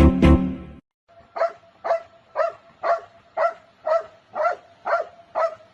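A dog barking over and over at an even pace, about two short barks a second, starting about a second in. A short burst of music ends just before.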